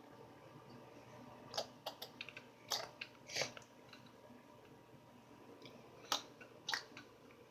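Sticky homemade slime being pulled apart and squished by hand, giving a scattering of short wet clicks and pops, a quick cluster in the first half and two more near the end.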